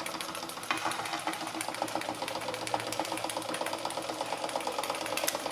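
Märklin 4106 live-steam toy stationary engine running fast, its exhaust and moving parts making a rapid, even beat of short clicks over a steady hiss.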